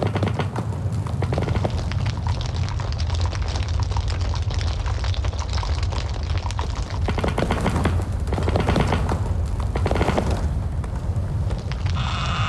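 Strong wind buffeting the microphone in a snowstorm: a steady low rumble with dense crackling.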